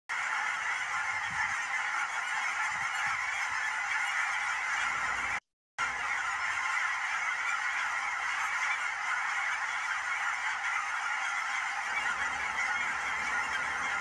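A flock of about a thousand cackling geese calling all at once, a dense, unbroken chorus of honks, cut off briefly about five and a half seconds in.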